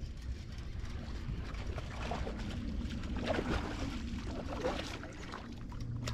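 Water splashing and churning among lily pads around the middle, as a snakehead strikes a topwater frog lure, over a steady low rumble of wind on the microphone.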